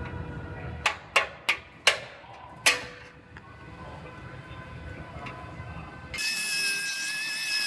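Five sharp metal-on-metal clanks in about two seconds, each ringing briefly, as a hand tool strikes the steel truck frame during removal of the damaged section, over a low rumble. Near the end a pneumatic cutting tool starts with a steady high whine.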